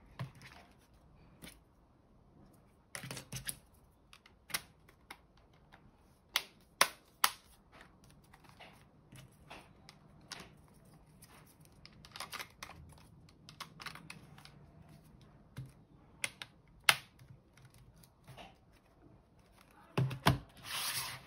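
Irregular sharp clicks and knocks of hard plastic as an OTOFIX D1 scanner's rugged case and side trim strips are handled and set down on a table. A longer rubbing, scraping noise comes near the end.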